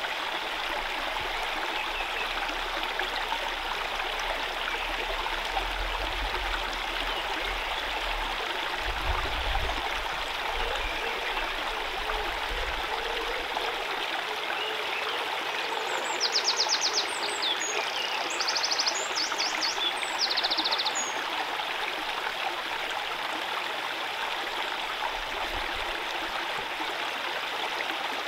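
A small woodland stream running steadily over stones. For a few seconds past the middle, a small bird gives short, high, quick trills.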